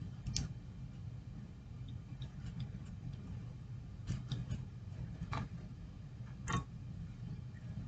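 Faint, scattered clicks of a plastic action figure being handled and its joints moved, over a low steady hum.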